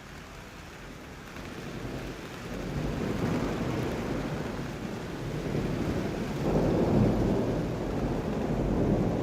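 Rolling thunder rumble that swells from about two seconds in, is loudest around seven seconds, and keeps rumbling after that.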